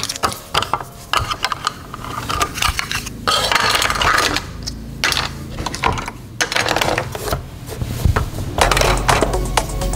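Small die-cast metal toy cars clattering and scraping against each other and the plastic playset: sharp clicks and clinks, with stretches of dense rattling a little over three seconds in and again near the end.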